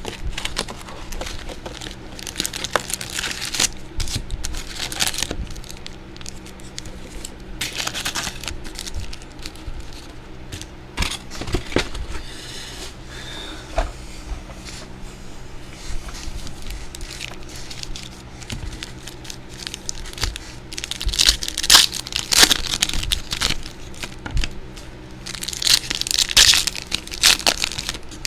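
Plastic and foil wrapping torn and crinkled in irregular bursts as a box of trading card packs is opened, louder and busier near the end.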